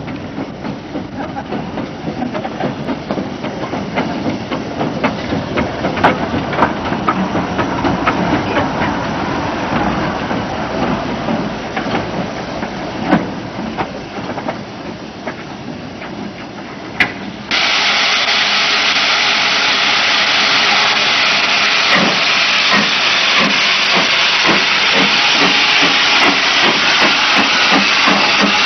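Small steam tank locomotive working slowly along the track, with uneven exhaust beats and clanks and knocks from the motion. Then it cuts sharply to a loud, steady hiss of steam escaping from GWR saddle tank No. 1338 standing close by.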